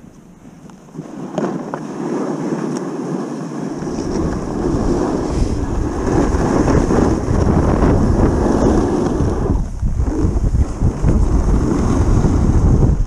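Wind rushing over the camera's microphone while riding fast down a snowy ski slope. It builds from quiet about a second in and turns into a loud, low rumble from about four seconds in, with a brief dip near ten seconds.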